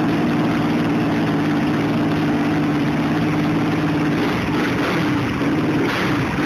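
Steady idle of a 2010 Yamaha YFZ450X quad's single-cylinder four-stroke engine through a GYTR aftermarket exhaust.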